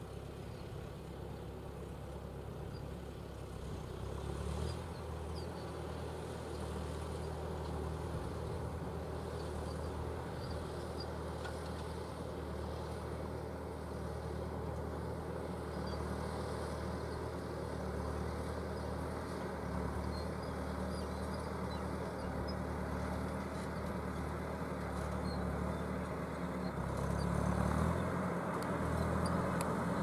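Fendt 415 Vario tractor's four-cylinder diesel engine running steadily under ploughing load as it pulls a Kverneland ED85 four-furrow plough. It grows louder near the end as the tractor comes closer.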